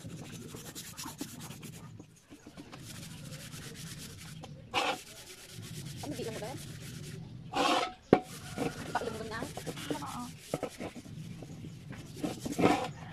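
Hand-scrubbing of the soot-blackened outside of a large metal cooking pot: a steady scouring rub in quick repeated strokes, with a few louder scrapes.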